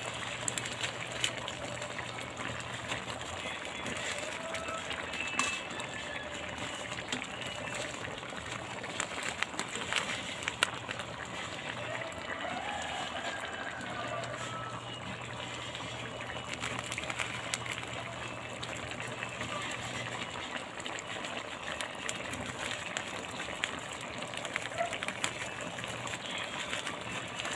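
Coconut-milk vegetable and fish stew simmering in a wok: a steady bubbling hiss with scattered small clicks and pops.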